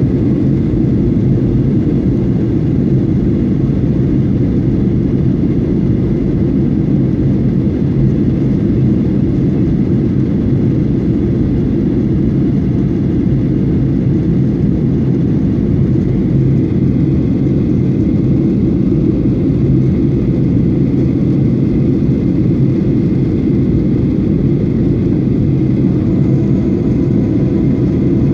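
Steady cabin noise of a jet airliner in flight, heard from a window seat: a constant low rush of engines and airflow, with a faint steady whine above it, while the plane descends on approach.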